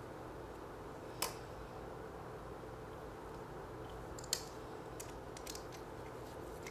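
Small metal parts clicking and tapping as screws and a red dot sight are handled on a pistol slide: two sharp clicks, about a second in and a little past four seconds, then a few fainter ticks, over a steady low hum.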